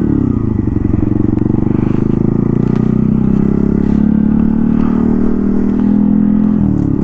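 Honda Grom's 125 cc single-cylinder four-stroke engine running under throttle while the bike is ridden. The pitch dips just after the start, then holds fairly steady, and drops sharply near the end as the revs fall.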